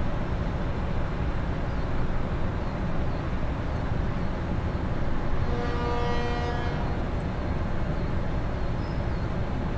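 Panama Canal electric towing locomotives (mules) running along the lock-wall track: a steady low rumble. A short steady pitched tone with overtones sounds about six seconds in.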